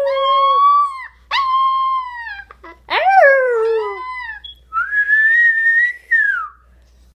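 Four-week-old wolf pup howling: a run of about four short, thin howls, each a second or so long with brief gaps between, mostly sliding down in pitch at the end; the last howl is higher than the others.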